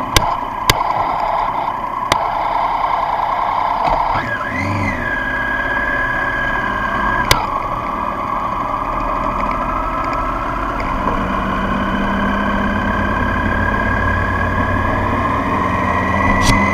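Triumph Street Triple's three-cylinder engine running while the bike rides slowly, heard through an onboard camera, under a steady rushing noise and a few sharp clicks. About four seconds in the engine note briefly rises and falls, and toward the end it climbs slowly as the bike pulls away.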